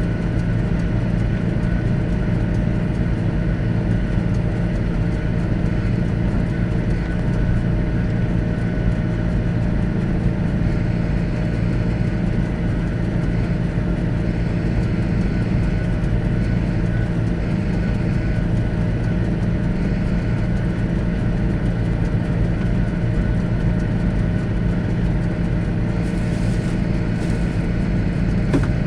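Large John Deere tractor's diesel engine running steadily at a constant speed, with a brief click near the end.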